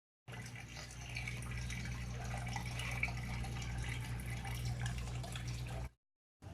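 Water trickling and dripping over a steady low electrical hum. It cuts off abruptly near the end and starts again after a short gap.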